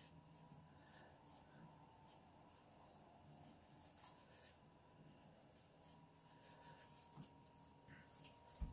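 Faint scratchy strokes of a small round brush dragging across watercolor paper as fur is painted in, with a soft low thump near the end.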